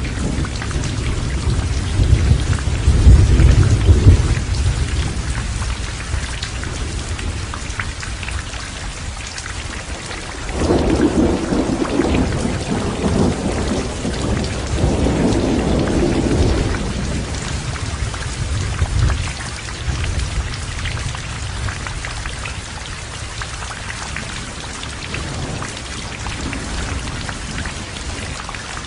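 Heavy rain falling steadily with thunder rolling over it. The loudest low rumble comes a couple of seconds in, a longer rumble from about ten to seventeen seconds in, and a short one a little after that.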